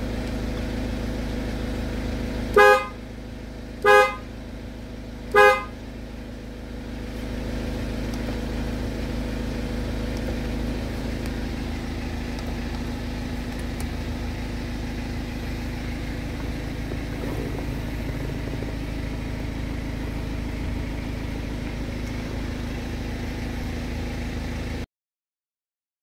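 BMW E90 car horn giving three short honks, set off from a shortcut button on an aftermarket digital gear knob. Under them the engine idles steadily at about 800 rpm. The sound cuts off abruptly near the end.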